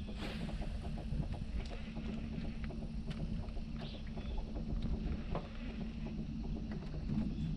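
A small fishing boat on the water: a steady low hum, with scattered light clicks and knocks.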